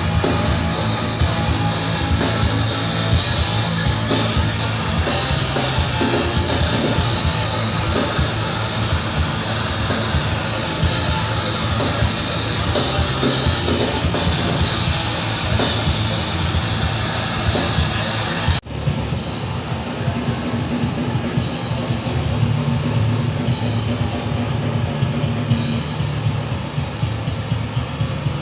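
Heavy metal band playing live, with distorted guitars and a drum kit. The sound breaks off for an instant about two-thirds of the way through, then carries on.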